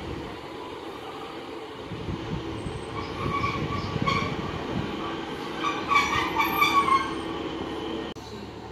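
Class 150 Sprinter diesel multiple unit 150241 rolling slowly into the platform, its brakes squealing in short bursts from about three seconds in, loudest near the end as it slows to a stop.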